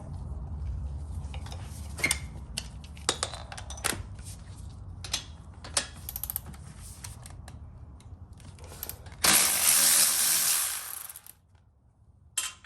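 Hand tools and a socket wrench clinking and clicking against metal while working loose the motorcycle final drive's mounting nuts. About nine seconds in comes a loud rasping burst lasting about two seconds.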